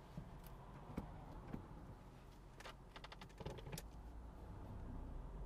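A manual car's engine idles as a low hum inside the cabin, while the controls make scattered small clicks and knocks, with a quick cluster of clicks past the middle: the driver is working the clutch pedal, gear stick and handbrake to get ready to pull away. The engine hum grows louder near the end.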